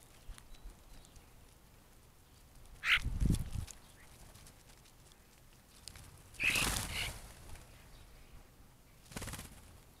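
A small flock of dark birds at a seed spot: three short flurries of wingbeats with brief harsh calls, about three, six and a half and nine seconds in, the last as the flock flies off.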